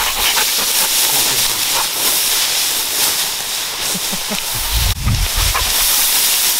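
Tall grass and reeds swishing as someone pushes through them on foot, brushing against the camera, with a few low rumbles on the microphone about two thirds of the way in.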